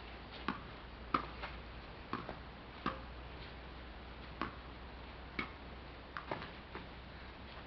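Tennis ball being hit back and forth in a rally: a series of sharp knocks of ball on racket and ground, irregularly spaced about a second apart, a few in quick pairs.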